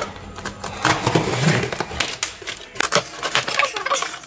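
Cardboard box being opened and unpacked by hand: rustling with a quick run of clicks and light knocks as packaging and boxed items are shifted.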